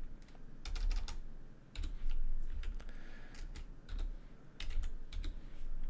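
Slow typing on a computer keyboard: a few keystrokes at a time, with pauses between the short runs of clicks.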